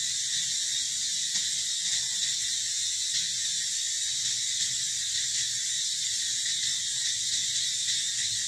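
A steady, high-pitched insect chorus.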